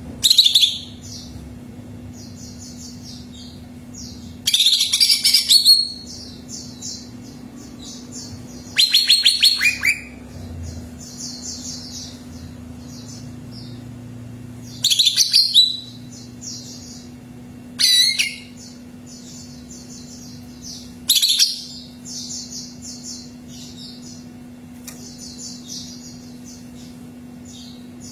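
Cucak ijo (green leafbird) singing: six loud, fast, rattling phrases a few seconds apart, over continuous soft high chirping, with a steady low hum beneath.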